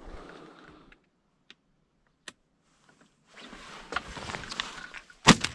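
Soft rustling and handling noise in a brush-covered hunting blind, with a single sharp knock about five seconds in.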